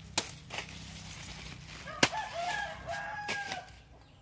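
A rooster crows once in the middle, a long wavering call lasting over a second. Around it come several sharp clacks, the loudest about two seconds in.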